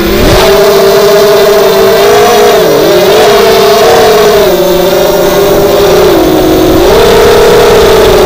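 Four Lumenier 2206 2000 kV brushless motors spinning HQProp 5x4.5 bullnose propellers on a 4S quadcopter, heard from a camera on the frame. A loud buzzing whine spools up as the quad lifts off the ground, then holds with its pitch dipping and rising as the throttle changes.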